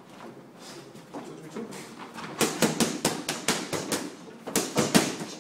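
Boxing gloves striking focus mitts in quick flurries of sharp slaps, starting about two seconds in. There is a short break before a second burst of punches near the end.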